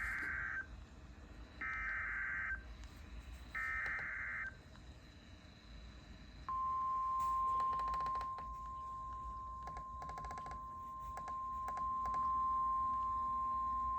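Emergency Alert System SAME header: three short bursts of warbling digital data tones about a second apart. About six and a half seconds in, the steady NOAA Weather Radio warning alarm tone begins, one long continuous beep with scattered clicks under it. It signals that a National Weather Service warning is about to be read.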